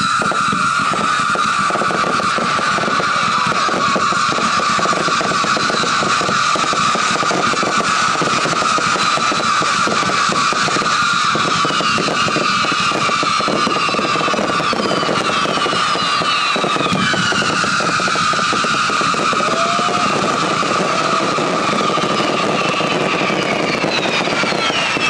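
Dozens of firework whistles going off at once in a dense barrage: one steady high whistling tone, with many falling whistles layered over it from about halfway on, over a constant crackling.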